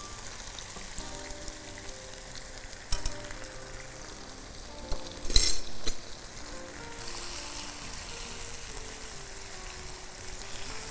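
Food frying in a wok, a steady sizzle. There is a knock about three seconds in and a brief loud clatter around five seconds in. The sizzle grows stronger from about seven seconds on as the wok is stirred with a spatula.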